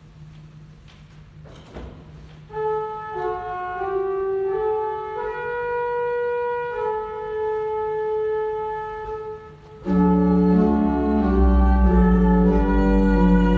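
Church organ begins playing about two and a half seconds in, with soft held chords that change slowly. About ten seconds in, it gets much louder as deep bass notes join. Before the organ starts there is only a faint low hum.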